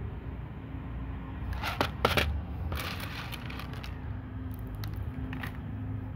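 Several short bursts of crackling over a steady low hum, the loudest about two seconds in.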